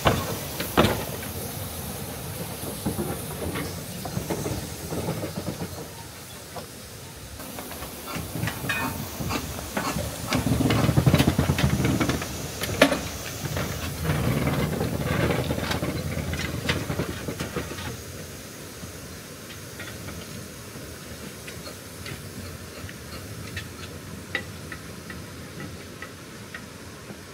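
Narrow-gauge steam locomotive Sir Haydn, the Talyllyn Railway's 0-4-2 saddle tank No. 3, hissing steam from around its cylinders and chuffing as it moves off along the line. It grows fainter as it draws away, much quieter from about eighteen seconds in.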